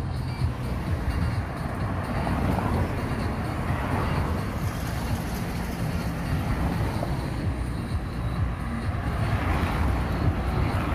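Street traffic: cars driving past, their tyre and engine noise swelling as each goes by, twice within the few seconds.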